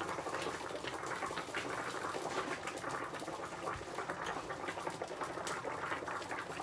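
Water boiling in an uncovered aluminium pot of spaghetti, bubbling and popping steadily.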